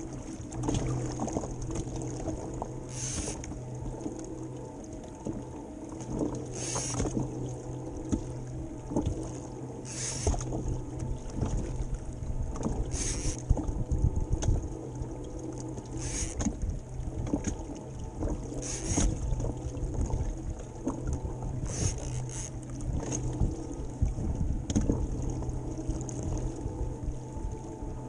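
Choppy, windy sea around a fishing kayak: water slapping and washing along the hull with wind on the microphone and a steady low hum, and a short hiss about every three seconds.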